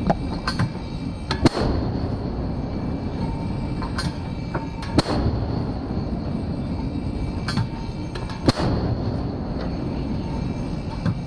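Mark 45 5-inch naval gun firing repeated rounds: three loud shots about three and a half seconds apart, each a second after a fainter sharp crack, over a steady low rumble.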